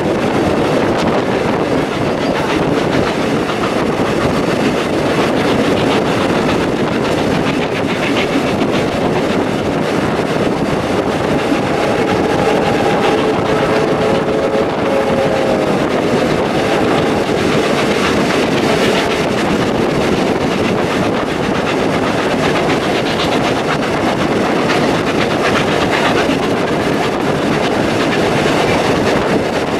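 Steam-hauled passenger train running on the rails: a steady, loud rumble of wheels on track with clickety-clack over the rail joints. A faint steady tone rises above it for a few seconds around the middle.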